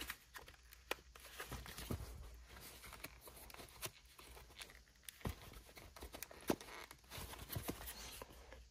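Faint rustling and small scattered clicks of a removed plastic automatic-shifter handle and its fabric boot being handled, the boot pushed down to reach the release clips.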